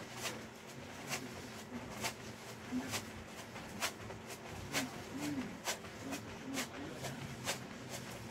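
A person doing jumping jacks in sneakers on a foam exercise mat: a sharp tap about once a second as the feet land, with short low grunts of effort between the taps.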